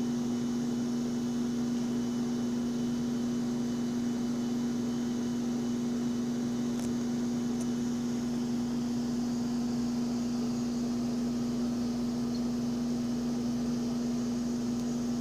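Steady low electrical hum from a running household appliance, unchanging throughout, with two faint ticks about seven seconds in.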